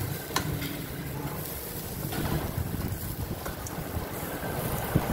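Wind noise on the microphone, a steady low rush, with two light clicks, one just after the start and one near the end, as bamboo skewers of shrimp are laid on a wire grill rack over charcoal.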